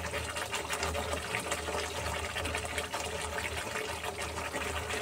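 Curry gravy boiling in a kadhai: a steady crackle of bubbling and spitting, over a low hum.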